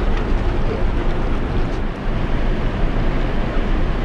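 Steady low rumble of a large car ferry's machinery running alongside the quay, mixed with the wash of churned water between hull and quay wall.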